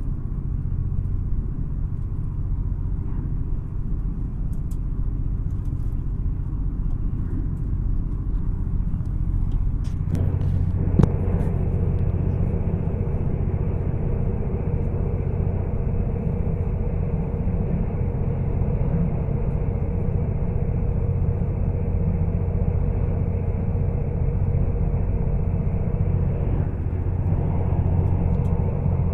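Steady low rumble of a moving train heard from inside the carriage. About ten seconds in it grows louder and fuller, and a single sharp knock follows shortly after.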